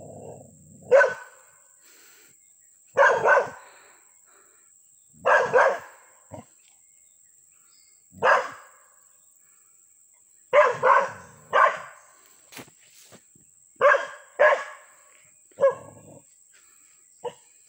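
A small dog barking repeatedly at a scarecrow, as if at a stranger. The barks come singly and in quick runs of two or three, a few seconds apart.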